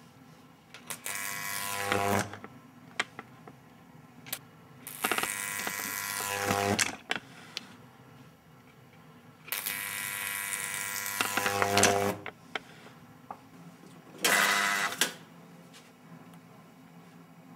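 High-voltage sparks from a Tesla coil buzzing and crackling across a pair of wire electrodes. They come in three bursts of one to two seconds each, and the buzz drops in pitch as each burst ends. A shorter buzz follows about two seconds after the third.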